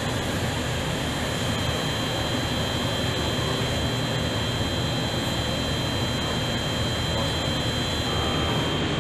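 Steady rushing noise of the air handling in an aircraft paint hangar, with two faint high whistles running through it.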